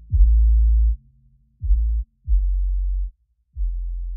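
Background electronic music: a sparse line of very deep bass notes, each starting with a quick falling pitch sweep, with four notes in a little over four seconds.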